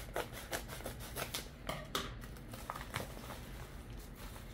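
Scissors snipping across the top of a padded kraft-paper mailer, then the paper crinkling and rustling as the envelope is pulled open by hand; a quick series of sharp snips and crackles.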